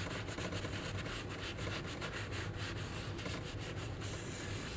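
Repeated wiping strokes, hand rubbing greasy fingerprints off a rebuilt turbocharger part, about three or four rasping strokes a second.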